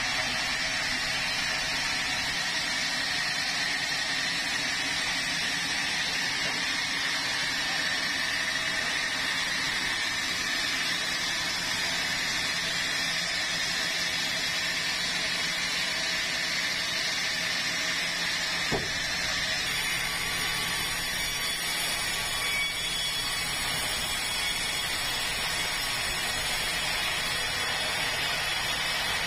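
A large band sawmill runs steadily, its vertical band blade sawing lengthwise through a red meranti log fed on the carriage.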